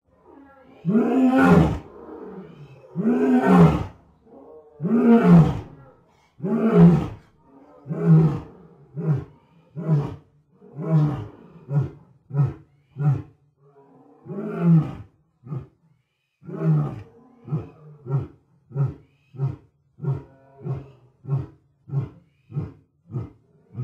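Lion roaring in a full bout: four long, deep roars about two seconds apart, trailing into a series of shorter grunts that come faster and faster. About halfway through, a second roar leads into another run of quick grunts.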